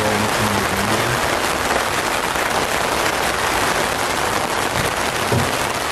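Rain falling steadily, an even hiss with no rhythm; faint low voices murmur briefly near the start and again about five seconds in.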